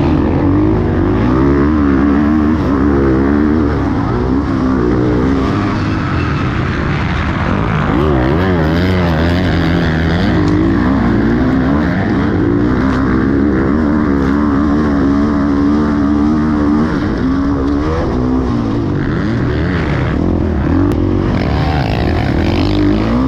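Dirt bike engine revving hard through a motocross lap, its pitch rising and falling over and over with throttle and gear changes, heard from a helmet camera with rushing noise underneath.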